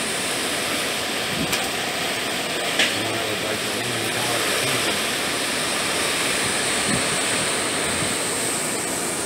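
Hurricane-force wind and rain making a steady rushing noise, with a couple of faint knocks in it.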